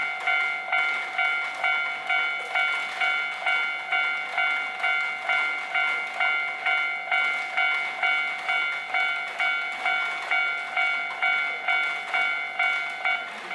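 Japanese railway level-crossing warning bell ringing, an electronic 'kan-kan' ding repeated steadily about twice a second.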